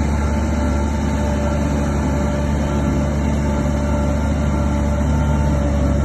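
Bulldozer's heavy diesel engine running steadily: an even low drone with a few steady higher tones above it.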